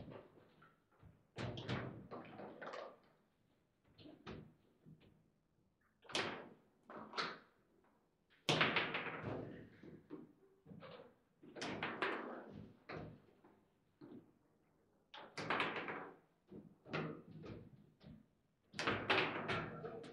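Foosball game in play: the hard ball and the rod-mounted player figures hitting each other and the table in irregular bursts of sharp knocks and clacks, with short quiet gaps between the exchanges.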